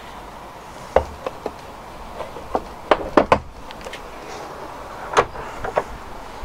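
Volvo 480's bonnet being opened and raised: a run of short metallic clicks and clunks, bunched about three seconds in, with a few more near the end.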